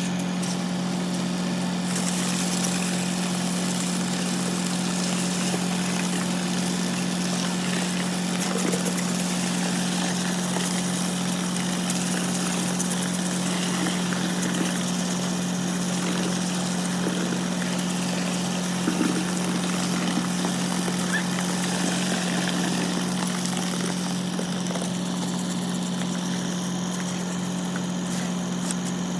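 Engine of construction machinery running steadily at constant speed: an unchanging hum over a wash of mechanical noise.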